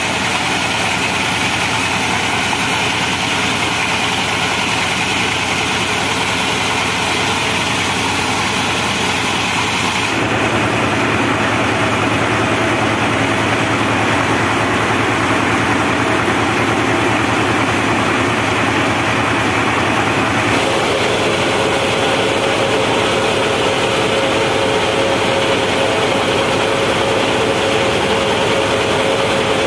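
The diesel engine of a homemade band sawmill running steadily, the sound shifting abruptly twice.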